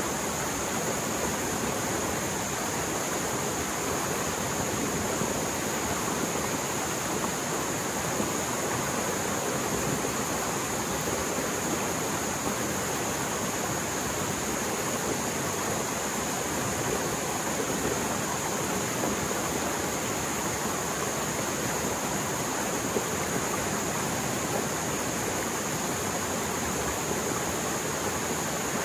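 Mountain stream swollen by heavy rain, flowing fast: a steady, unbroken rush of water.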